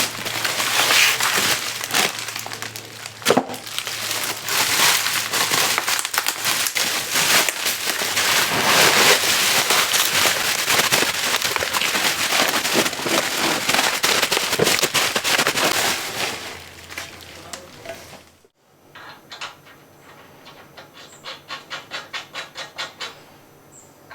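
Packing material being handled and pulled apart while a crate is unpacked: dense crackling and rustling that fades out after about sixteen seconds. After a sudden cut, a quieter run of even soft pulses follows, about three a second.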